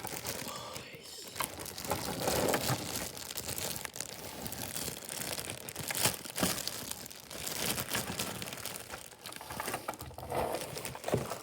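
Packaging crinkling and rustling, with irregular small clicks and crackles, as a model train passenger car is unwrapped from its box.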